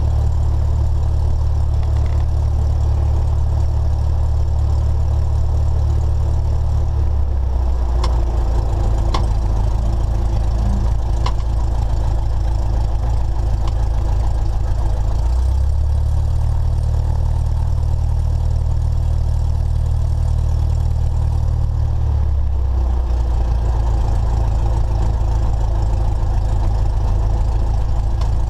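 Cessna 172SP's four-cylinder Lycoming engine and propeller running at low taxi power, heard inside the cabin. The engine note drops in pitch about seven seconds in, rises again around the middle, and drops once more later on, with a few faint clicks between eight and eleven seconds.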